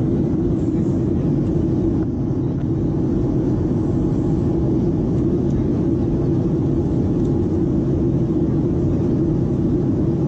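Steady cabin noise of a jet airliner climbing, heard inside the cabin: a constant low rumble of engines and airflow with a steady hum.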